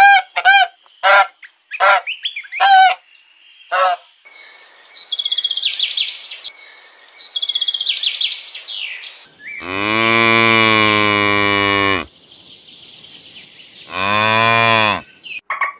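A domestic goose honks in a quick run of short calls. Then a European bee-eater gives high, rolling trilled calls. Then a cow moos twice: one long moo and a shorter one near the end.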